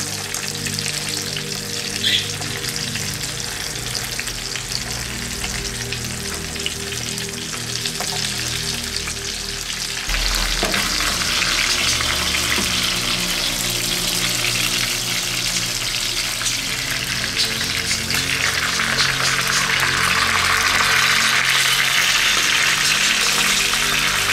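Salted horse mackerel frying in olive oil in a pan: a steady sizzle that grows louder about ten seconds in and again near the end.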